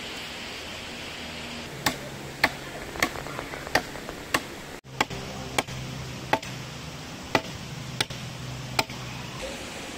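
Hatchet chopping into a fallen branch on the ground: about eleven sharp strikes, roughly one every two-thirds of a second, starting about two seconds in.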